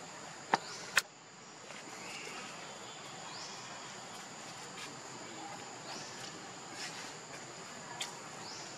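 Steady high-pitched drone of insects, with two sharp clicks about half a second and one second in and a few short rising chirps.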